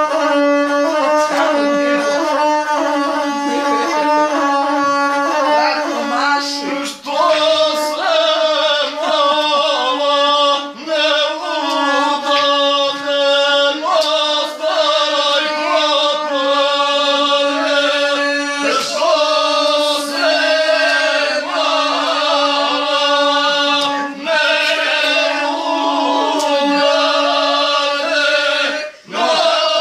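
A gusle, the single-string bowed Balkan fiddle, being bowed while a man sings along with it, with only brief breaks about seven seconds in and near the end.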